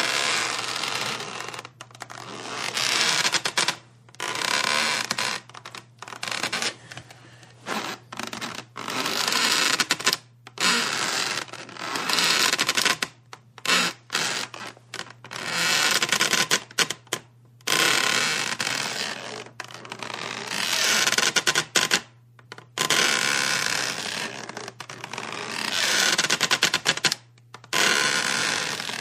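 Wood creaking under strain: a long run of irregular creaks and groans, some short and some drawn out over a couple of seconds, with brief pauses between them.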